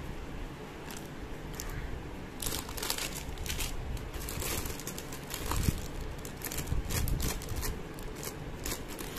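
Clear plastic jewellery pouches crinkling as hands sort through them in a plastic box, with many short crackles from about two and a half seconds in.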